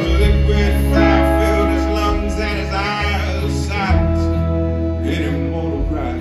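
Live country-rock band playing a passage between sung lines: bass and keyboard holding chords under strummed acoustic guitar, electric guitar, drums and accordion.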